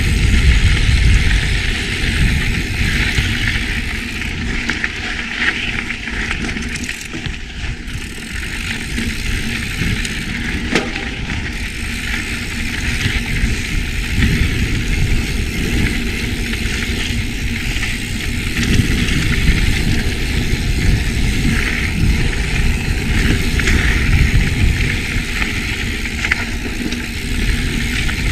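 A mountain bike riding a dirt trail: steady wind rush on the microphone, with tyre and trail noise underneath.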